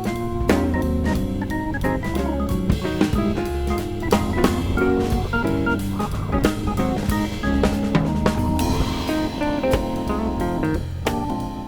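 Background music with a drum kit keeping a steady beat under bass and pitched instrument lines.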